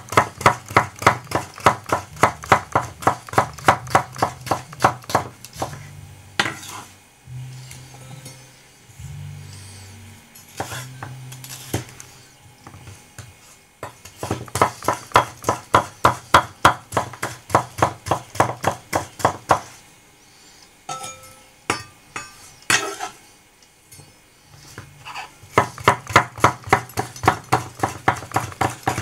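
Ikea Slitbar VG10 chef's knife chopping on a cutting board: quick, even runs of knocks at about three a second, broken by pauses with a few single knocks.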